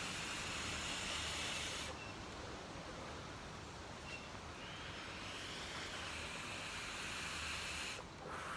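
Steady hiss of background noise that thins in the upper range about two seconds in, with two faint short high tones.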